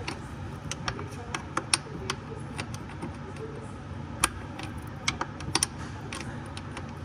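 Scattered sharp metal clicks and taps of hand tools and loose parts, a dozen or so, the loudest about two and four seconds in, over a steady low hum.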